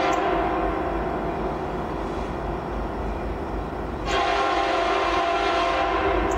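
Union Pacific locomotive air horn sounding a long blast that fades, then a louder long blast starting about four seconds in.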